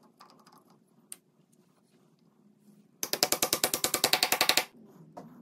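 Brass-headed hammer tapping a loose wooden tenon into a glued mortise in the end of a chair leg: a quick run of about twenty light, even strikes, about a dozen a second, lasting a second and a half and starting about three seconds in. Faint small clicks come before it.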